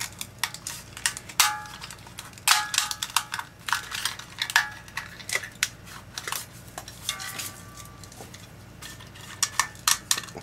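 Corroded remains of a carbon-zinc lantern battery's cell casing being crumbled and broken apart by hand: irregular crunches and crackles, with small fragments clinking onto a metal tray.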